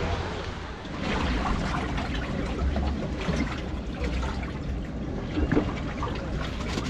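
Sea water lapping and trickling against the hull of a small wooden fishing boat, over a steady low rumble.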